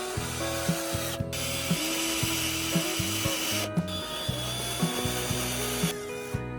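Background music with a steady beat, over which a scraping tool noise runs in two long stretches with a brief break between them.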